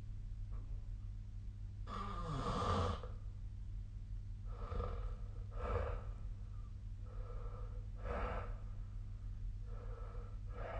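A sleeping person snoring: one loud snore about two seconds in, then several shorter, quieter breaths at uneven gaps of one to two seconds.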